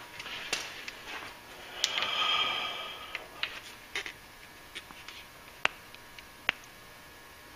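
Hands handling a truck's front ABS wheel-speed sensor wire and its rubber grommets and clips. Scattered sharp clicks, the sharpest a little over five seconds in, with a longer hissing rustle about two seconds in.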